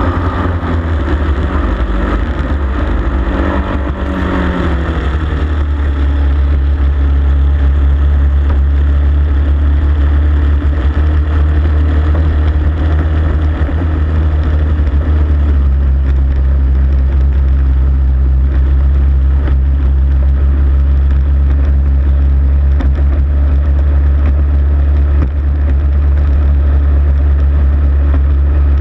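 Racing hydroplane's engine running hard at speed, heard onboard with wind and water rush over the hull. Its pitch shifts up and down over the first few seconds, then holds steady.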